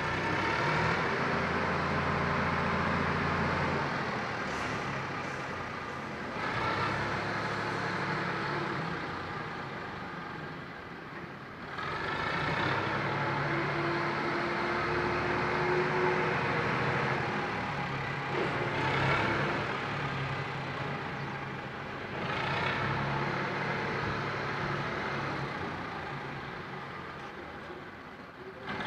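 Rice husk grinding machine running with its belt-driven electric motor and blower: a loud, steady mechanical noise over a low hum, its level rising and easing every few seconds.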